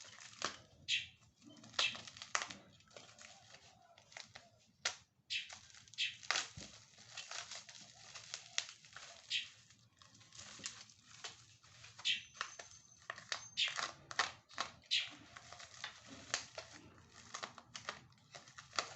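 Plastic packaging crinkling and tearing in many short, irregular rustles and rips as a product is unwrapped by hand.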